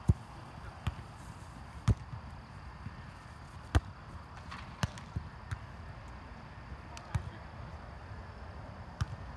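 A volleyball being struck by hand over and over: a series of sharp slaps, about nine, at irregular intervals, the loudest in the first few seconds.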